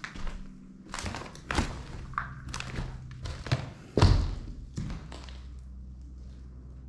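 A run of irregular thumps and knocks in a reverberant room, the loudest about four seconds in, followed by a low steady hum.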